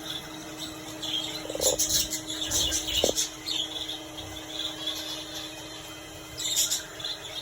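Pet birds chirping in high bursts, clustered about a second and a half in and again near the end, over a steady low hum.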